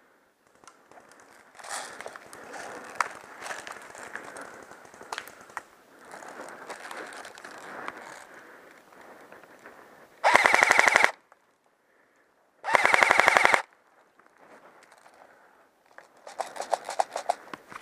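Airsoft automatic electric gun firing full-auto: two loud bursts of about a second each, roughly ten seconds in and again two seconds later, with a fast rattle of shots. Quieter scattered shots come before them, and another rapid burst of fire comes near the end.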